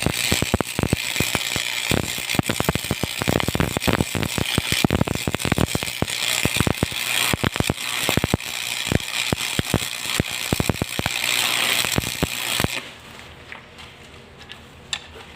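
Electric welding arc crackling steadily, a dense, irregular crackle over a hiss. The arc cuts off suddenly near the end, leaving only a few faint clicks.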